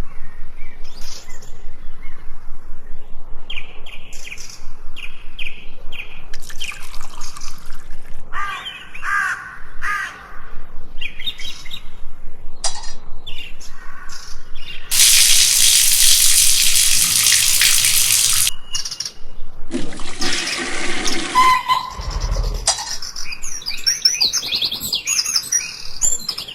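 Small birds chirping and calling over and over. Midway, a loud rushing noise lasts about three and a half seconds, then a shorter one follows, along with a low thud.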